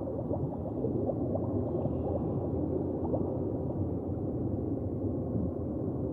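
Underwater ambience: a steady low rumble dotted with many small rising bubbling blips.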